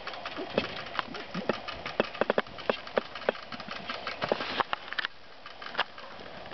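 Dry hay in a rabbit nest box crackling and rustling in quick, irregular clicks, which thin out about five seconds in.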